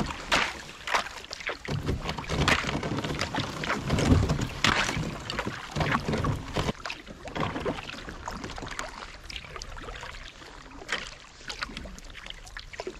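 Kayak paddle strokes: the blades dip and splash in the water in a quick, irregular rhythm, with water washing along the kayak's hull. The strokes are louder for the first half and quieter after about seven seconds.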